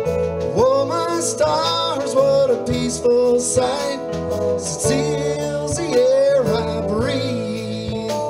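Background music: a song, with a gliding melody line that comes in about half a second in over a steady accompaniment with changing bass notes.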